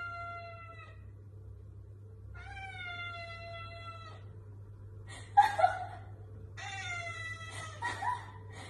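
Tabby cat giving three long, drawn-out meows, each falling slightly in pitch, with short, louder, rougher cries in between, about five and a half seconds in and again near the end.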